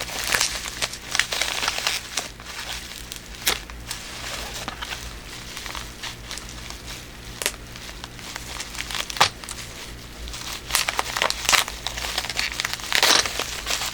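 Packaging crinkling and rustling in irregular bursts as a package is opened by hand, busier near the start and again toward the end.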